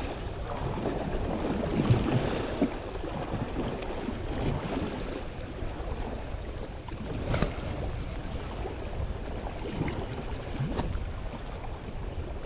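Small sea waves washing and splashing over shoreline rocks, with wind buffeting the microphone. A few brief slaps of water stand out about two, seven and eleven seconds in.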